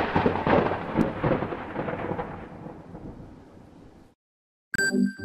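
Intro sound effect: a crackling, thunder-like rumble that fades away over about four seconds and stops. After a short silence, electronic music starts near the end.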